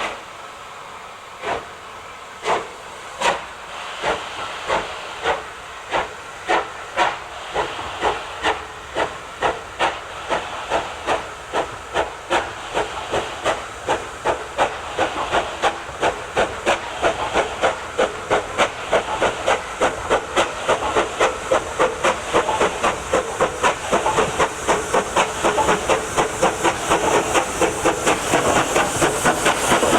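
Steam locomotive pulling away under load. Its exhaust beats start slowly, about one a second, and quicken steadily to about three a second as it gathers speed, over a constant hiss of steam, growing louder throughout.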